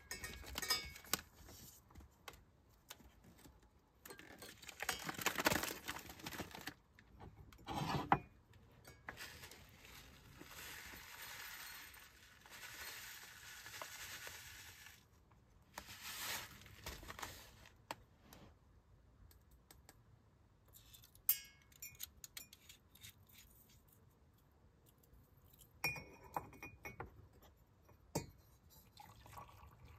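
Small kitchen handling sounds: a metal spoon clinking and tapping against an enamel mug, the crinkly rustle of a paper coffee or tea bag being opened and handled, and a few light knocks of utensils and a steel pot on a wooden board.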